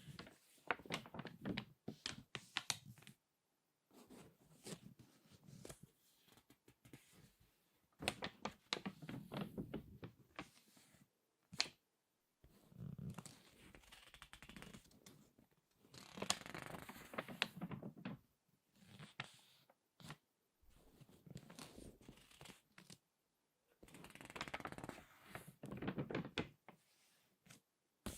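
Crinkly magazine pages crackling as they are turned and squeezed by hand. The crackle comes in bursts of two or three seconds with short pauses between, and there are a few single sharp snaps.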